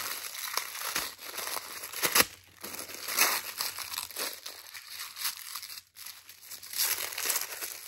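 Wrapping of a small gift parcel crinkling and tearing as it is unwrapped by hand, in irregular rustles with a short sharp snap about two seconds in.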